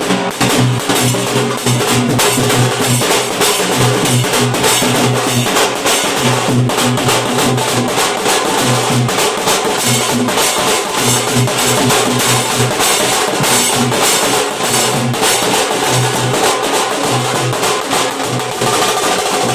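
Nashik dhol drumming: loud, fast, continuous drum beats with steady low booming strokes under dense, sharp higher strikes.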